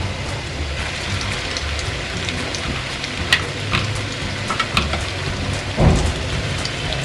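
Flour-coated chicken pieces deep-frying in hot oil in a pan: a steady sizzle with scattered crackles and pops, and a dull thump a little before the end.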